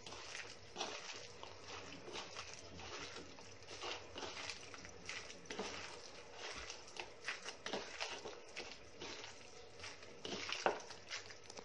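Raw chicken pieces being mixed with ginger-garlic paste, salt and chicken 65 masala for pakoda: a run of irregular short sticky, wet sounds, with one louder one near the end.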